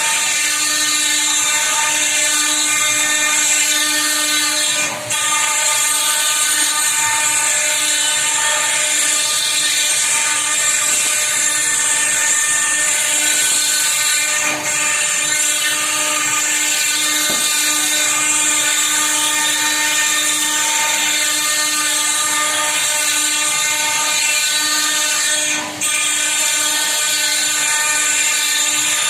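CNC router spindle cutting a design into stone, giving a steady high-pitched whine, with brief dips three times.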